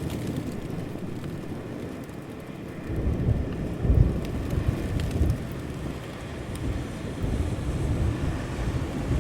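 Steady rain with a low rumble of thunder that rolls in about three seconds in, loudest a second later, then keeps rumbling more softly.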